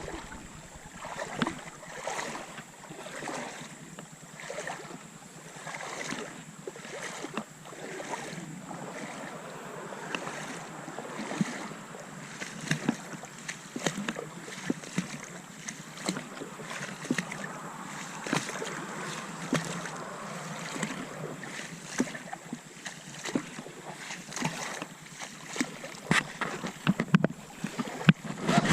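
Shallow creek water sloshing and splashing in irregular short bursts over a steady rush of moving water.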